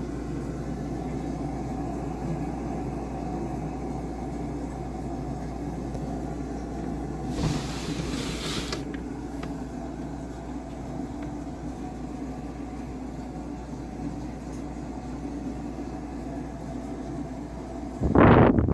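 Steady low rumble with a constant electrical hum underneath, and a short hiss about halfway through. Near the end comes a loud, brief sweeping sound, then the audio cuts off abruptly.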